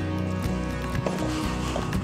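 Background music with held notes over a steady bass line, and a brief burst of noise about halfway through.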